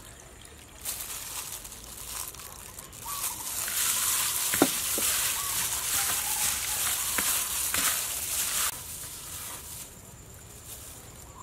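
Raw snakehead fish pieces being mixed with lime juice by a plastic-gloved hand in a plastic bowl: wet squishing with crinkling of the glove. The sound stops abruptly about three-quarters of the way through.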